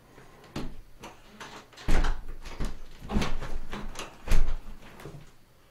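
Wooden front door being pushed shut against a newly fitted electronic door lock, giving a series of knocks and heavy thumps, the loudest about four seconds in. The latch does not meet the strike plate cleanly: the strike plate is out of position and needs adjusting.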